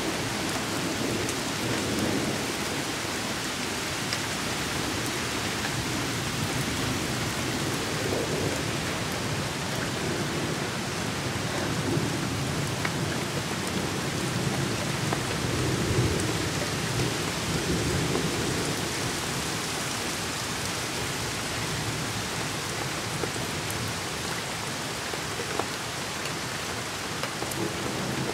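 Heavy rain falling steadily, with low rolling thunder that swells a few times, strongest around the middle.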